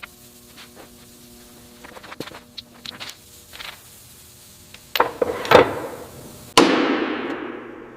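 Restoration work on the metal of an old steam traction engine: scattered knocks and taps of tools. About five seconds in come two louder bangs, and near the end a sharp bang trails off over about a second and a half, over a faint steady hum.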